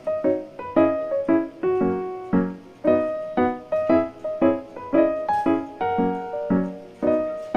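Background music: a light piano tune of short, evenly paced notes and chords.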